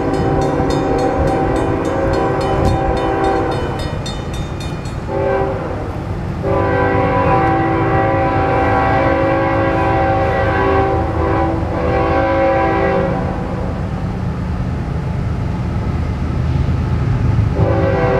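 Diesel freight locomotive horn blowing a series of blasts over the rumble of the approaching locomotive: one long blast, a brief one about five seconds in, another long one until about two-thirds of the way through, and a fresh blast starting near the end.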